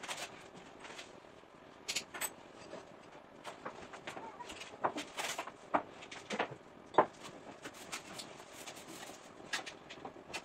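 Irregular clicks, knocks and clatters of objects being handled and set down in a kitchen, several sharp ones in the second half.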